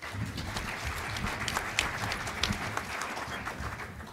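Audience applauding: a dense patter of many hands clapping that starts abruptly and dies away near the end.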